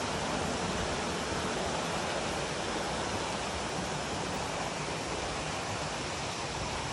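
Steady rush of flowing water, an even wash of noise without breaks.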